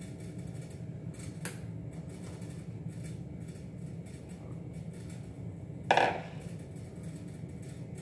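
A mixing bowl knocked once, sharply, about six seconds in, with a short ring, after a lighter tap earlier on; a steady low hum runs underneath.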